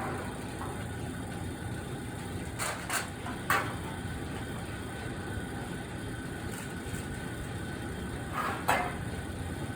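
A steady low mechanical rumble, with short sharp knocks three times about three seconds in and once more near the end.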